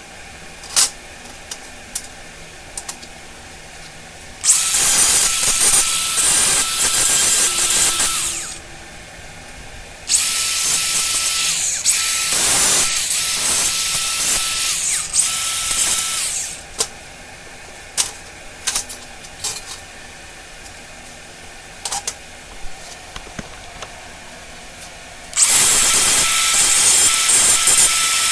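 Metalworking on steel bed-frame stock: a loud, harsh hissing with a faint steady whine runs in three bursts of several seconds, starting about 4 s in, about 10 s in and near the end. Scattered light clicks and knocks fall between the bursts.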